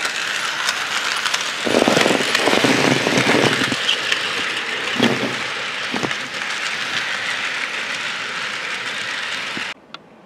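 HO scale model freight train rolling along the track: a steady rattling whir of small wheels over rail joints with scattered clicks, swelling louder for about two seconds near the start. It cuts off suddenly near the end.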